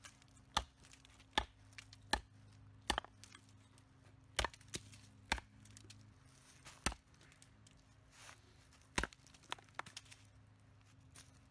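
A heavy chopper blade making about a dozen sharp, irregular chops into something, with pauses of up to two seconds between strikes.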